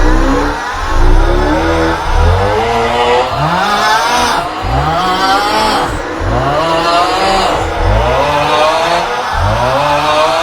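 The 'Aughhhh' meme sound: a man's loud, groaning 'aughhh' snore-like vocalisation, looped so that several copies overlap, each a pitched cry gliding up and down, with a new one starting about every second over heavy low bass.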